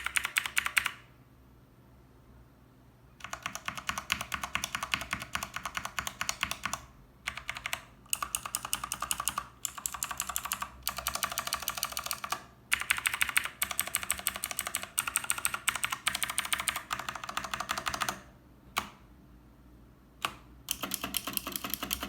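Fast typing on a Redragon Dark Avenger mechanical keyboard fitted with ten clicky Gateron Blue switches among its stock Outemu Brown ones. The keys clatter in quick runs, broken by short pauses and by longer gaps at about a second in and at about eighteen seconds in.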